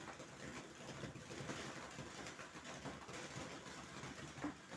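Fountain firework (air mancur) burning: a steady faint hiss of spraying sparks with many small crackles from popping star bursts, and a slightly sharper pop near the end.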